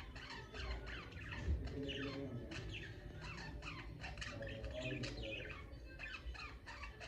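A group of budgerigars chattering, with many quick downward-sliding chirps overlapping one another. There is a brief thump about a second and a half in.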